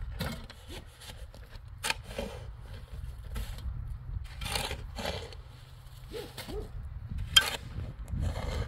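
Irregular scraping and knocking, with one sharp knock about seven seconds in, over a low steady rumble.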